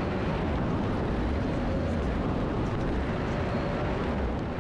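Steady wind rushing and buffeting over the camera microphone during a tandem parachute descent under an open canopy.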